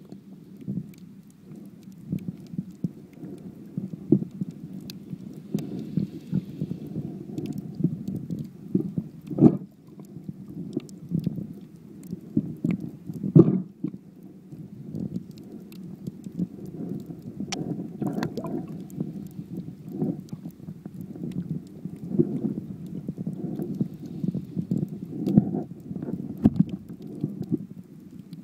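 Muffled underwater rumbling picked up by a phone's microphone sealed inside a waterproof case as it is moved through the water, with a few sharper knocks against the case.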